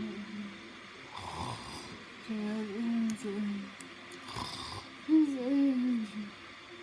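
Snoring: short rasping breaths alternate with drawn-out, wavering pitched snores, two of each, each pitched snore lasting about a second.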